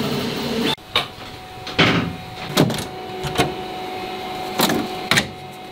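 Background music cuts off about a second in. Then a QIDI Q1 Pro 3D printer's enclosure door and lid are handled, giving about six separate knocks and clunks over a faint steady hum.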